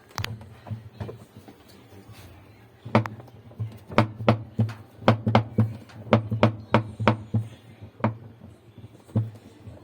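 An irregular series of sharp knocks and taps: a few at the start, then a busy run of them, several a second, before they thin out near the end.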